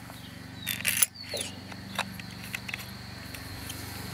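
A few light clicks and knocks from handling small metal parts and tools, over a steady low hum. Two faint, short high chirps come in the first second and a half.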